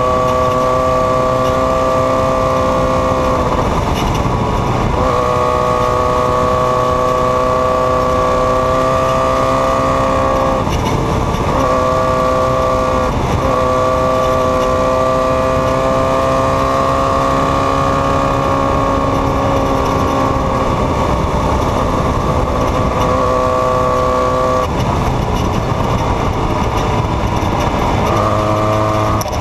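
Off-road race vehicle's engine running hard at a steady high pitch, holding its note for several seconds at a time and briefly breaking off about five times before settling back to the same pitch.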